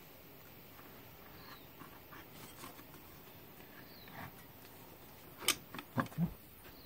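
A few light clicks and knocks, the sharpest about five and a half seconds in, as the plastic air-cleaner housing is worked into place on the carburettor and breather hoses are pushed on beneath it.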